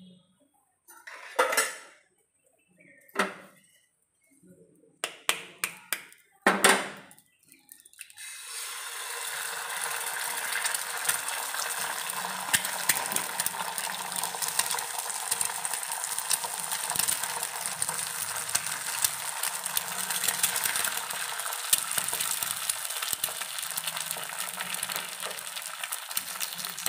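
A few sharp knocks and clinks of kitchen utensils, then about eight seconds in, eggs hit hot oil in a flat pan and fry with a steady sizzle.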